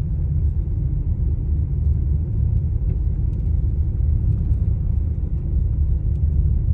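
Jeep on all-terrain tyres driving through deep snow, heard as a steady low rumble of engine and tyres.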